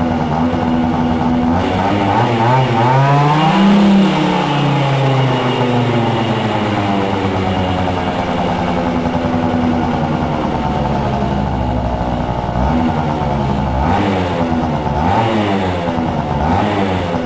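Two-stroke engine of a Kymco ZX 50 scooter with a Polini 70cc kit and Yasuni R expansion exhaust, revving: the pitch climbs to a peak about four seconds in and falls back, then runs steadier, with smaller rises and falls near the end.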